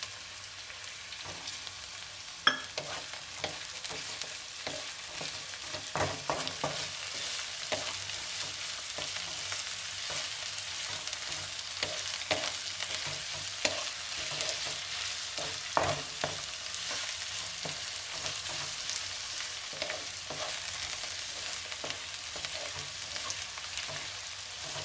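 Chopped vegetables with peas sizzling in hot oil in a pan while being stirred, a spoon scraping and clicking against the pan many times. There is one sharp knock about two and a half seconds in.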